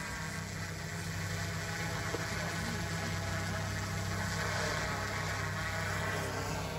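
Large quadcopter camera drone flying overhead, its propellers giving a steady buzzing hum with a strong low drone beneath it.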